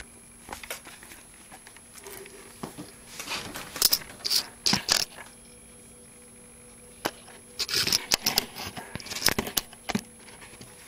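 Close rustling and clicking handling noises in two irregular clusters of short bursts, with a quieter gap between them.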